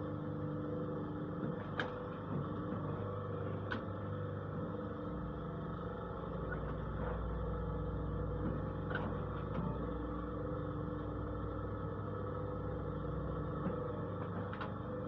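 Paving-block press machine running steadily, its motor giving a continuous hum with a few sharp knocks scattered through.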